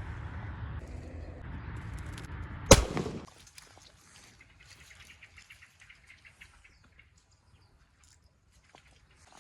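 A single gunshot about three seconds in, sharp and by far the loudest sound, with a short echo. Before it there is a steady rustling noise; after it only faint ticks and rustles.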